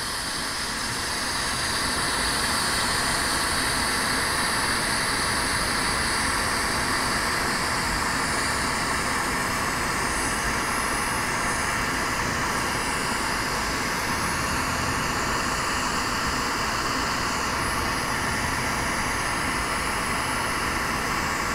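Oxygen-fuel lampworking bench torch burning with a steady hiss while glass rods are melted in its flame; it grows a little louder over the first couple of seconds, then holds.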